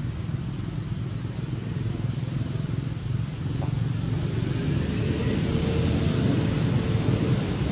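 A motor vehicle's engine running somewhere off-picture: a low steady rumble that grows louder over the last few seconds.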